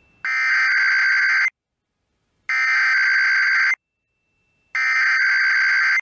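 Emergency Alert System SAME header: three identical bursts of digital data tones, each about a second and a quarter long and about a second apart, announcing a Required Weekly Test.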